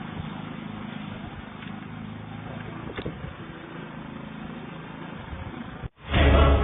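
Engine of a grass cutter running steadily, with one short knock about three seconds in. It cuts off abruptly near the end, and loud music starts.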